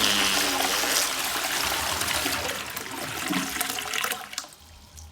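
Water rushing through household plumbing, like a toilet flush, falling away to a faint trickle about four and a half seconds in.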